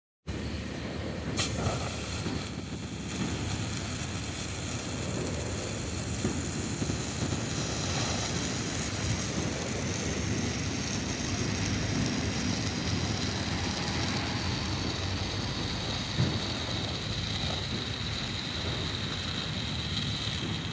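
Dragon Fire novelty fountain firework burning, its dragon's mouth spewing a jet of flame with a steady rushing hiss. A sharp crack comes about a second in, and a smaller pop later on.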